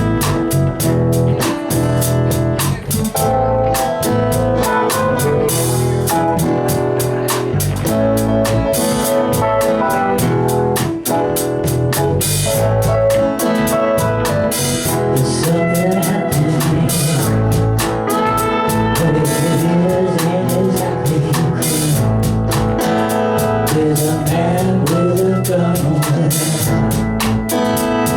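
Band playing a rock song with electric guitar and drum kit at a steady beat.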